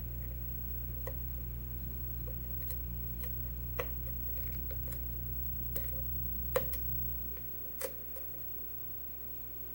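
Scattered, irregular light clicks of a lock pick and tension wrench working the pin stack of an ABUS 80/45 padlock during single-pin picking. A steady low hum underneath drops away about seven seconds in.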